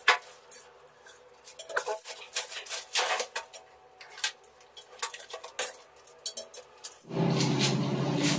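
Irregular metallic clinks and rattles of a health faucet's coiled stainless-steel hose and sprayer being handled and freed from their packing with pliers. Near the end a steady low hum starts suddenly.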